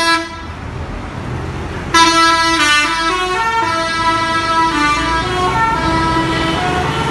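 Basuri 'telolet' multi-tone bus horn playing a tune of stepping notes. It breaks off just after the start and comes back loud about two seconds in, over a low engine rumble.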